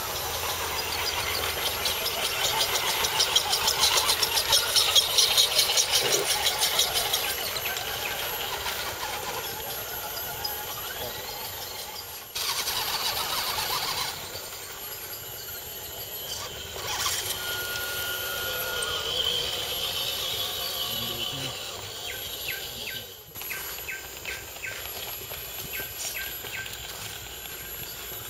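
Electric motors and gearboxes of radio-controlled scale crawler trucks whining as they climb a dirt trail. A rapid buzzing is loudest in the first few seconds, with a louder stretch about twelve seconds in.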